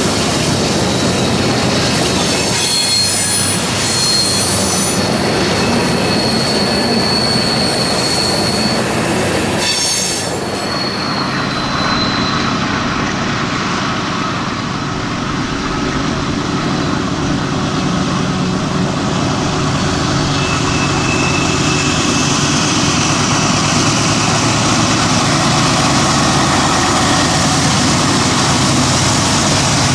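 Freight train of covered hopper cars rolling past, its steel wheels squealing in high tones on the curve for about the first ten seconds. After a cut, there is a steady rumble of the train's diesel locomotives working it along.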